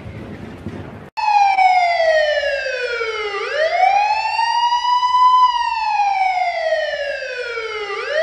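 A siren wailing, its pitch sliding slowly down and back up about every four and a half seconds. It starts abruptly about a second in, cutting across the dying noise of a boom.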